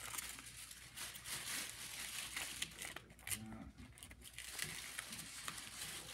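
A paper pie sleeve crinkling and rustling in the hands as a fried apple pie is eaten out of it, with irregular small crackles.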